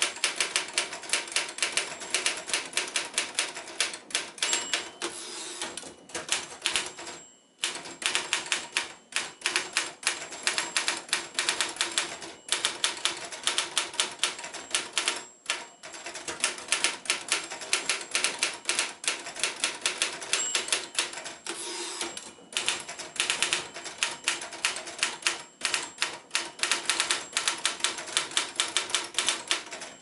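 1960 Royal FP standard manual typewriter being typed on at a fast, steady pace: a rapid run of keystrokes with typebars striking the platen, broken by a few brief pauses.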